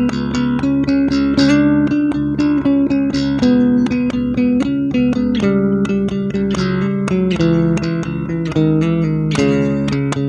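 Ibanez SRT805DX five-string electric bass with EMG 40DC pickups and a Darkglass Tone Capsule preamp, played clean with no effects: a quick run of plucked notes, several a second.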